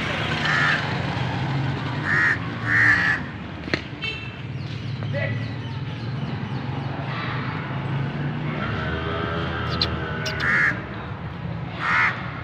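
Short, harsh bird calls, about five of them, singly and in pairs, over a steady low background hum.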